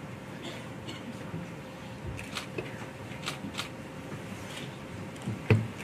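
Quiet indoor room tone with a faint steady hum and scattered soft clicks and rustles. There is one sharper knock near the end.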